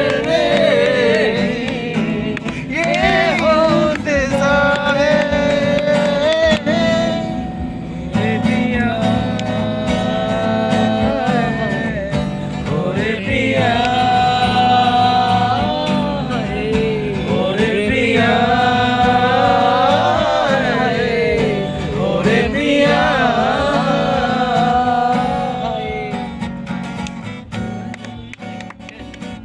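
A man singing a song to a Yamaha acoustic guitar strummed in steady chords. It fades out near the end.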